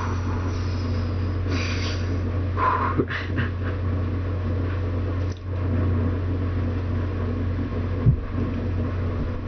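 A few short, breathy huffs and gasps from a person reacting to the burn of hot sauce, over a steady low hum, with a small knock near the end.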